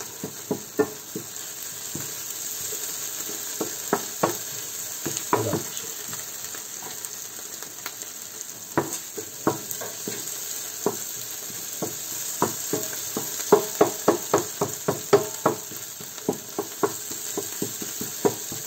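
Sofrito frying in a large pan, a steady sizzling hiss, while a wooden spoon stirs it, knocking and scraping against the pan over and over; the spoon strokes come faster about two-thirds of the way through.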